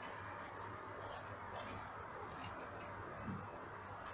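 Faint crisp crackles and ticks of green bell peppers being cored and handled, over a low steady hum.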